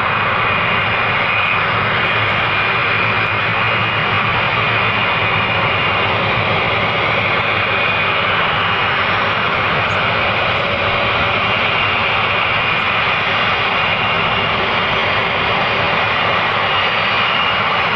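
Jet airliner engines at high takeoff power, a loud, steady rushing roar with faint high whining tones in it.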